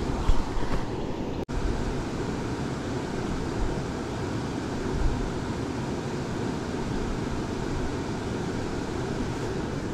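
Steady rushing of river water, with a few low thumps and a brief dropout about a second and a half in.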